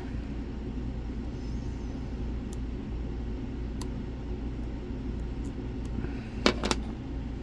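Lock picks working inside a Lockman Megacross dimple lock: a few faint ticks, then two sharp clicks close together near the end, over a steady low hum.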